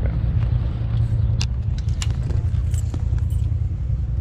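Handling noise from an action camera being turned and fitted to its mount: a few sharp clicks and metallic rattles over a steady low rumble.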